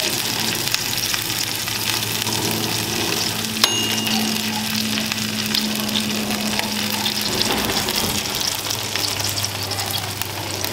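Two freshly roasted whole chickens sizzling on the rack of a hot countertop electric oven, a steady crackling hiss over a low hum. There is one sharp click with a brief ring about three and a half seconds in.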